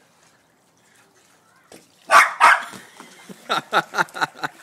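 Dog barking: two loud barks about two seconds in, then a quick run of about six short, sharp barks near the end.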